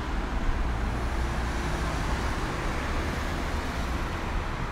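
Road traffic: cars driving past on a road, a steady rumble with tyre noise.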